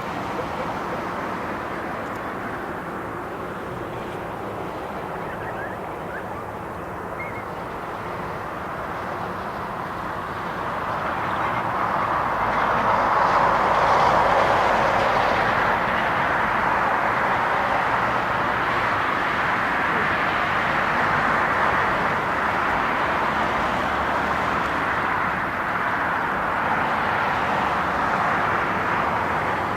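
Jet engine noise from a four-engine Boeing 747-400 on its takeoff. It is a steady rushing noise that swells about halfway through and then stays loud.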